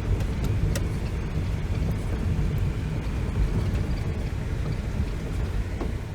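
Renault Master motorhome on the move, heard as a steady low rumble of engine and road noise.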